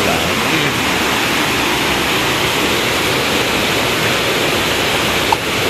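Floodwater rushing in a steady, loud, unbroken rush, from a flooded street or storm canal running full after torrential rain. There is one short tick near the end.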